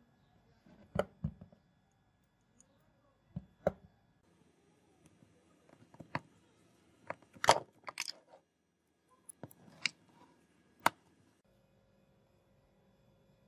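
Small steel parts and a flat screwdriver clicking and knocking against the frame of a revolver-shaped vintage oil lighter as it is handled and reassembled: about ten separate sharp clicks, the loudest a quick cluster a little past halfway.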